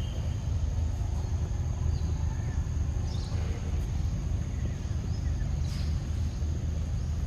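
Outdoor ambience: a steady low rumble under a thin, steady high-pitched whine, with two brief high chirps about three seconds and six seconds in.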